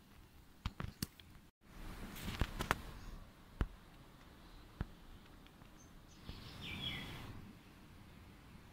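Quiet outdoor ambience with a few scattered sharp clicks and a brief bird chirp about two-thirds of the way through.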